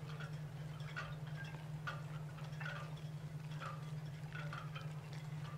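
Faint, light tinkling notes sounding at uneven intervals, roughly one or two a second, over a steady low hum.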